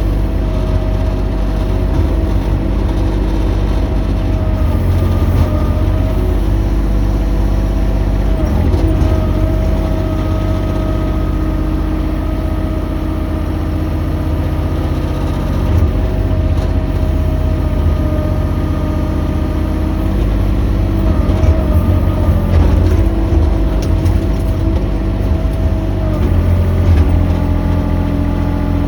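Mini excavator engine running steadily under working load, with a higher tone above it that dips and returns every few seconds as the machine works.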